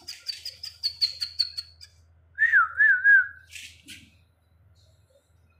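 A bird giving a rapid series of short high chirps, about five a second, for the first two seconds. Then a loud warbling whistle that wavers up and down for just under a second, about halfway in.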